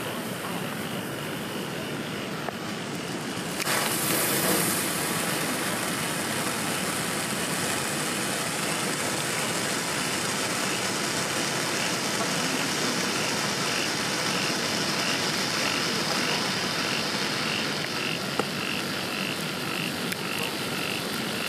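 Handheld pyro stick firework burning with a steady hiss that grows louder about four seconds in as it flares up. A faint regular chirp repeats a little more than once a second in the background from about the middle on.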